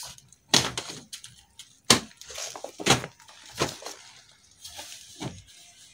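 Bedding being handled on a bed: cloth rustling and flapping, with several sharp slaps and thumps as the sheet, pillows and clothes are shaken out and dropped onto the mattress.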